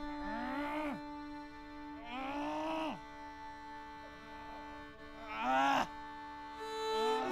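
Film-score strings holding a steady chord, with three long moaning calls that rise and fall in pitch; the last, about five seconds in, is the loudest.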